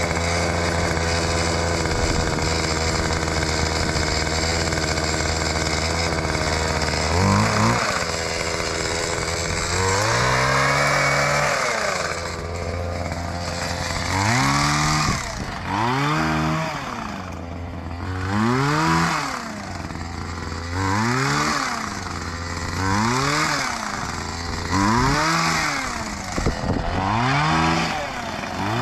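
Petrol hedge cutter engine running at a steady idle for about seven seconds. It is then revved up and let back down over and over, roughly every two seconds, as the blades cut through overgrowth.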